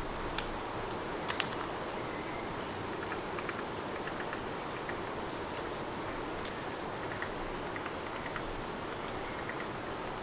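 Steady rain with small scattered drips and taps, and short high chirps several times over it.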